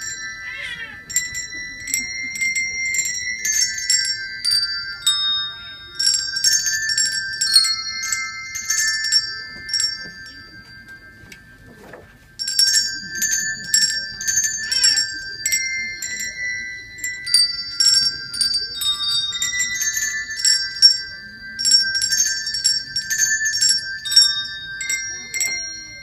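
Small colour-coded handbells rung one after another by a group of children, playing a tune of bright, overlapping ringing notes. The ringing fades out about ten seconds in and starts again sharply about two seconds later.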